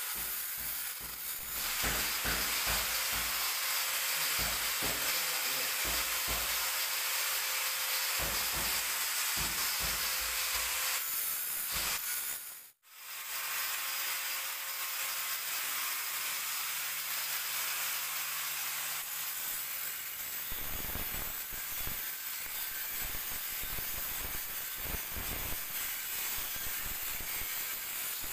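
Angle grinder running with an abrasive disc pressed against the edge of a granite countertop, a steady harsh hiss of stone being ground into a bevel. It breaks off briefly about halfway through, then carries on.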